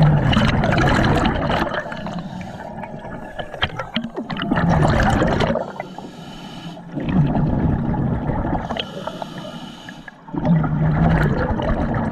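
Scuba regulator breathing heard underwater: four loud rushes of exhaled bubbles about three seconds apart, with quieter gaps between breaths.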